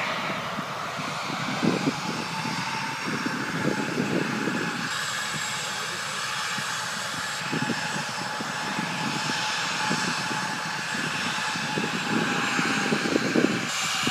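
Japan Airlines jet airliner's engines running with a steady hiss and faint whine as it taxis slowly toward the camera, with uneven low rumbling throughout.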